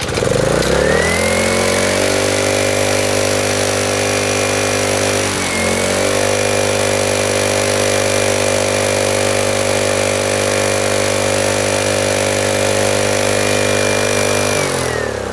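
Gas pressure washer's small single-cylinder engine pull-started, revving up and then running steadily at high speed, with one brief dip about five seconds in, before it winds down near the end. It runs now that a valve adjustment has cured its lack of compression, though its speed sounds really high to the owner.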